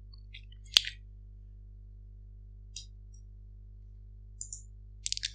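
A few computer mouse clicks over a low, steady electrical hum. The sharpest click comes about three-quarters of a second in, with fainter ticks near the end.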